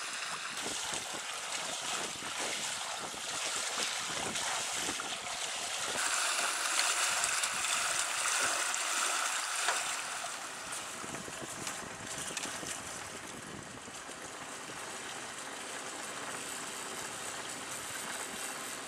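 Steady rush of water and wind while a sailing yacht is under way in a freshening breeze, louder for a few seconds in the middle.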